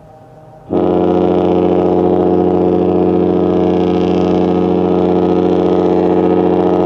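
A Disney cruise ship's horn sounding one long, steady blast of several notes at once, starting suddenly just under a second in and cutting off near the end.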